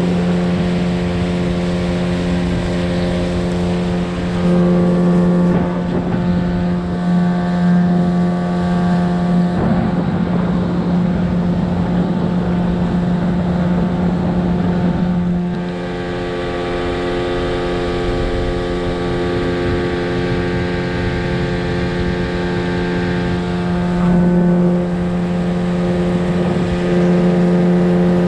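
Motorboat engine running steadily while the boat is underway: a continuous even hum, with a rougher, noisier stretch from about ten to fifteen seconds in.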